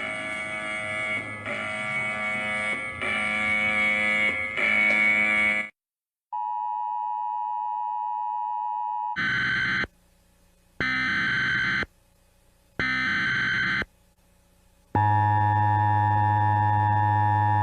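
A sequence of electronic emergency alert tones: first a pulsing chord of tones swelling about every second and a half, then after a short break a steady single pure tone for about three seconds. Then come three separate beeps about a second each, and from near the end a steady, buzzy alarm tone.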